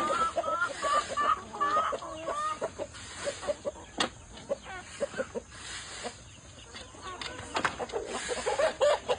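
Chickens clucking and calling, busiest in the first few seconds and again near the end, with a few sharp clicks in between.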